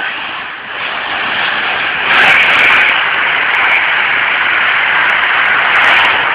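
Electric passenger train passing through the station at speed: a loud, steady rush of wheel and air noise that grows louder about two seconds in, with a few sharp ticks on top.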